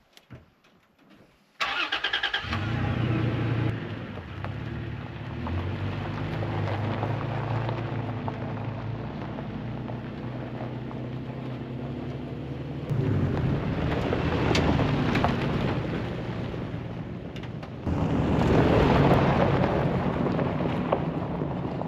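Pickup truck engine starting about a second and a half in, then running steadily; the sound grows louder and noisier twice in the later part, as though the truck is pulling away.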